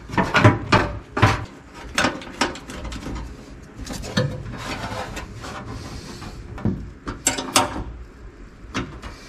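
Steel bracket and plastic coolant expansion tank knocking and clicking together as they are handled and a bolt is fitted by hand to hold them.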